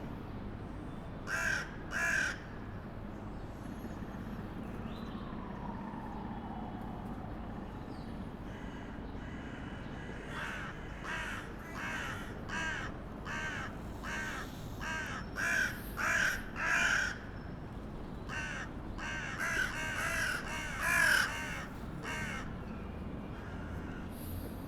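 A crow cawing: two harsh calls, then a long series of repeated caws, over a steady low background rumble.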